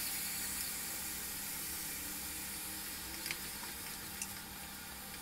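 Onions, tomatoes and green chillies frying in coconut oil in an aluminium pressure cooker, a steady sizzle as they are stirred with a wooden spoon. A couple of faint light taps come in the second half.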